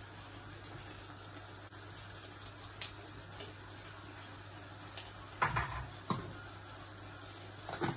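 Kitchen items being handled by the stove: a sharp click about three seconds in, then a cluster of knocks and clatters a little after five seconds and another knock near the end, as bottles and utensils are picked up and set down. Under it runs a steady low hum.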